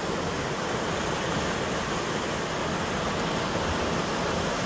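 Steady rushing of the Yakima River's current tumbling over a shallow riffle, an even wash of water noise with no break.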